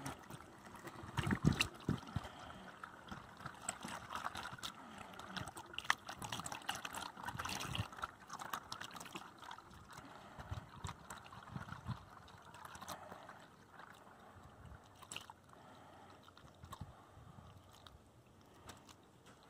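Distilled water poured from a plastic gallon jug into a plastic funnel, trickling and gurgling down into the coolant reservoir as the drained cooling system is refilled. A few light clicks are heard, and the pour grows quieter toward the end.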